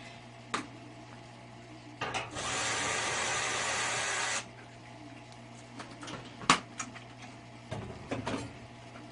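A power tool runs steadily for about two and a half seconds, starting and stopping abruptly, amid sharp clicks and knocks of parts being handled, over a low steady hum.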